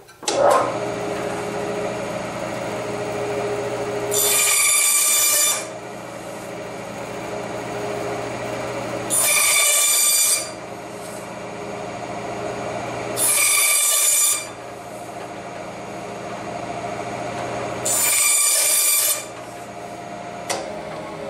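Bandsaw running steadily, cutting a thin oak strip crosswise four times; each cut is a louder hissing rasp lasting about a second and a half, spaced about four to five seconds apart over the motor's steady hum.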